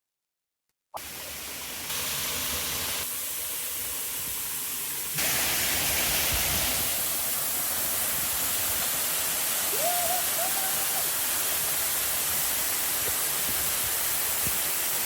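Steady rushing roar of a tall waterfall, starting after about a second of silence and growing louder in steps about two and five seconds in.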